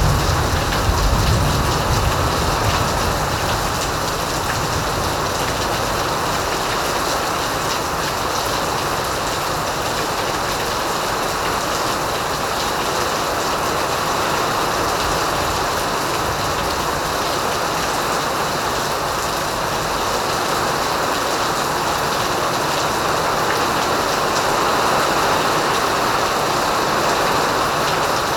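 Rain falling steadily, an even hiss that hardly changes; a low rumble underneath dies away in the first couple of seconds.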